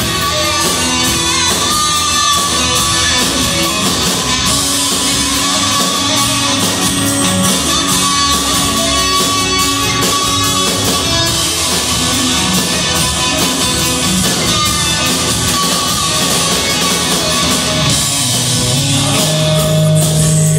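A rock band playing live and unplugged, with acoustic guitars, bass guitar and drums. A guitar lead line of held, bending notes runs over the band.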